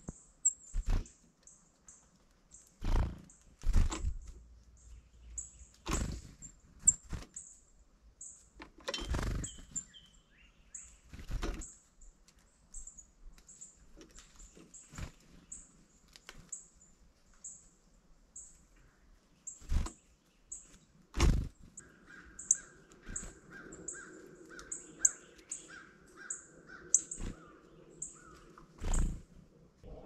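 Wild birds calling: a steady run of high, thin chip notes, about three a second, with a run of lower, drawn-out calls in the last several seconds. Scattered sharp thumps stand out loudest among them.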